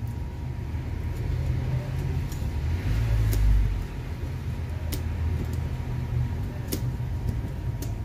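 A few sharp, isolated small clicks, the metal tool tip catching on a hair dryer's coiled resistance wire and its mica frame, over a steady low rumble that swells briefly about three seconds in.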